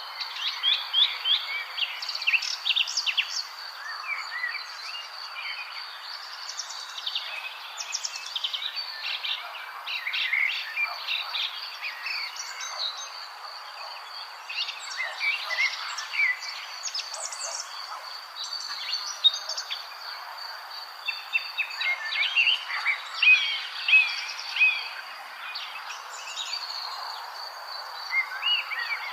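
Several songbirds chirping and singing in quick, overlapping short phrases, over a steady high-pitched insect drone.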